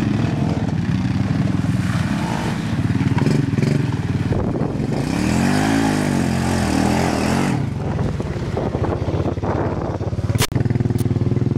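ATV engines running, with one quad revving up and back down about halfway through as it drives through the mud close by, churning and splashing the muddy water. A sharp knock comes near the end.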